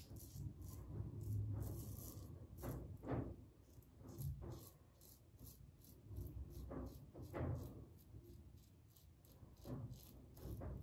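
Safety razor (TGS Valynor with a KAI blade) scraping through lathered stubble on the across-the-grain pass: faint, crisp scratches in short quick strokes, several a second, with a few longer strokes, over a low rumble.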